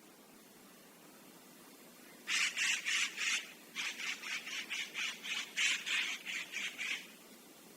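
Treepie calling: rapid series of harsh, rasping chatter notes, a short run of about four starting some two seconds in and a longer run of about a dozen that stops about a second before the end.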